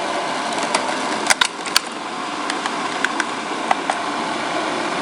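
A coffee maker running with a steady whirring, with a few sharp clicks over it.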